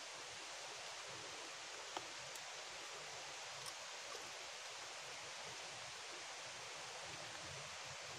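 Steady, even hiss of running and falling water, with one sharp click about two seconds in and a few faint ticks after it.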